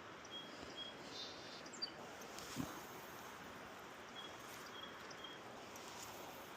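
Faint outdoor ambience: a bird calling a series of three short, evenly spaced high notes, twice, over a steady low hiss, with a soft thump about two and a half seconds in.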